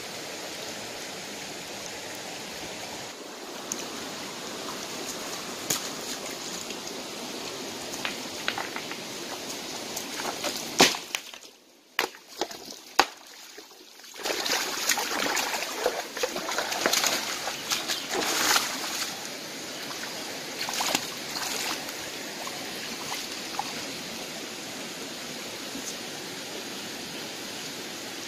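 Shallow stream running over rocks, with sloshing and splashing from hands groping in the water for about five seconds around the middle.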